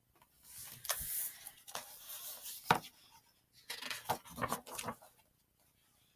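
Paper rustling and handling as the pages of a picture book are turned, in irregular scrapes with a few sharp crackles.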